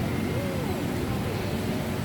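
Steady low background rumble and hiss with faint, distant voices heard through it.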